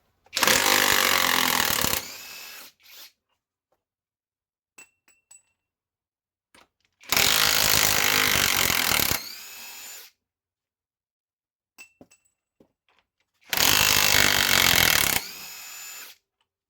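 Cordless mid-torque impact wrench (Greenworks Pro IW 5800) run in reverse three times to break fasteners loose. Each run is about two seconds of loud rapid hammering that drops to a quieter free spin and winds down as the fastener comes free.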